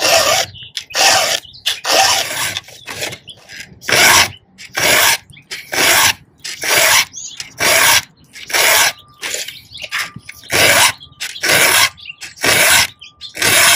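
Round file rasping across the cutter teeth of a chainsaw chain in steady push strokes, about one a second, as the chain is sharpened by hand.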